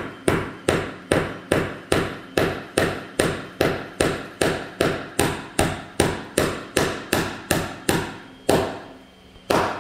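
A small 8-ounce hammer tapping a nail into a wooden board, about two and a half even taps a second, then two slower strikes near the end as the nail is driven flush with the wood.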